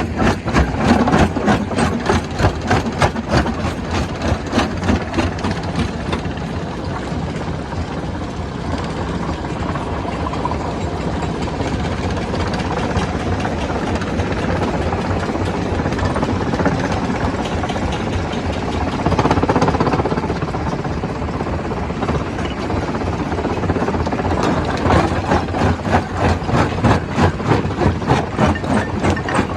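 Stone crusher running under load, a continuous heavy mechanical rumble with rhythmic knocking of about two to three beats a second, which smooths out for a stretch in the middle and comes back near the end.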